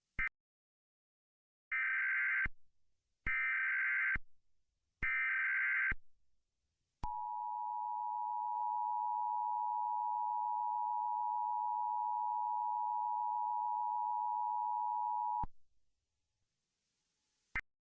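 Emergency Alert System SAME header: three identical bursts of warbling digital data tones, each just under a second long, followed by the EAS two-tone attention signal (853 and 960 Hz) held steady for about eight and a half seconds. These sounds announce a severe thunderstorm warning.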